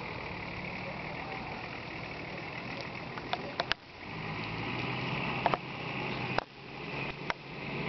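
Off-road vehicle engine running steadily, with a few sharp knocks. About four seconds in, and again near six and a half seconds, the sound drops suddenly and then builds back up.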